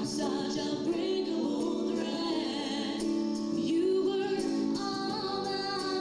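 Music with singing from a live stage show: long sung notes with vibrato, without a break.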